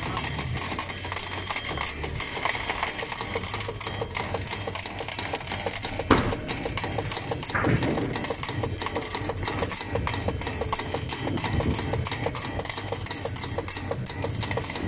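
Classic fruit machines clattering: a stream of rapid mechanical ticks and clicks, with one louder clack about six seconds in, over a low arcade hum.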